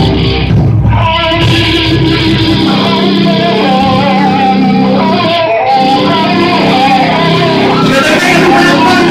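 Live rock band playing loud, amplified electric guitars over bass. About two and a half seconds in, the deep low end drops away, leaving the guitars holding sustained notes and melodic lines.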